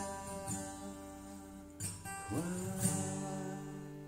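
Instrumental music between sung lines: chords strummed a few times and left to ring out, with no singing.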